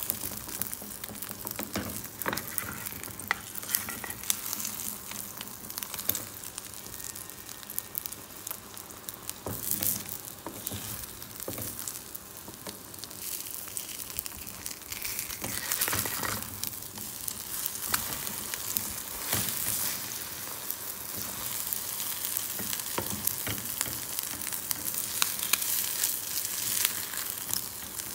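An omelette sizzling in hot oil in a black frying pan, with steady crackling and now and then the scrape of a wooden spatula working under it and lifting it.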